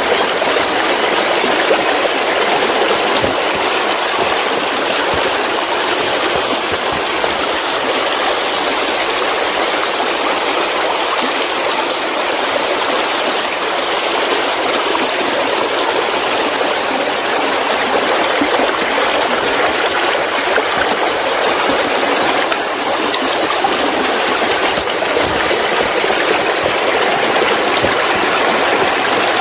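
Waterfall: a steady, unbroken rush of falling water, hissy and bright, with little low rumble.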